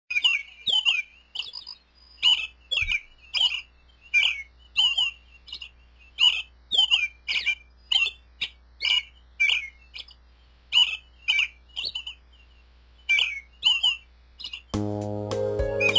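American robin giving a long run of short, sharp calls, about two a second, with a brief pause around the middle. Music comes in near the end.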